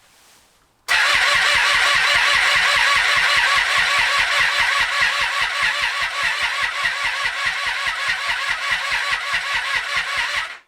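2012 Triumph Street Triple 675R's three-cylinder engine cranking on the electric starter in an even, rhythmic churn. It starts about a second in and runs for nearly ten seconds without catching, then stops abruptly: the bike turns over but will not fire.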